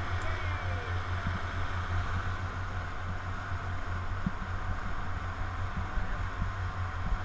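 Speedboat running at speed on twin outboard motors, a steady low rumble with a rush of water and wind noise over it.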